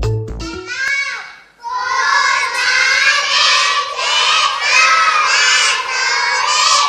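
A class of young children speaking together in loud unison, a drawn-out sing-song chorus of many voices that starts about a second and a half in.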